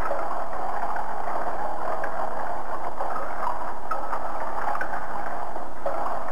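Water running steadily in a sewer tunnel, a constant rush with scattered small drips.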